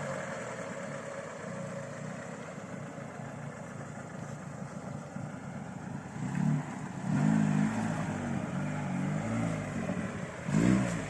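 Lada Niva (VAZ-21218) engine running at low revs, then revved up and down several times from about six seconds in, with another sharp rise near the end.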